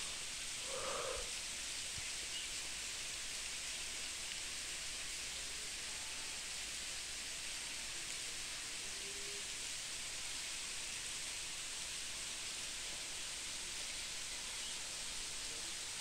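Steady hiss of water from a tall, thin waterfall falling and splashing down a cliff, with a brief faint sound about a second in.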